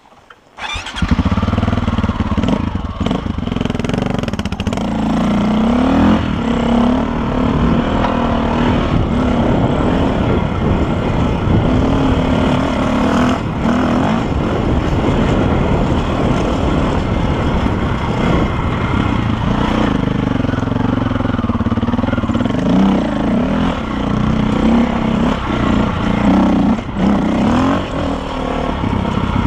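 KTM dirt bike engine coming in abruptly about a second in, then running hard as the bike is ridden, its pitch rising and falling again and again with throttle and gear changes.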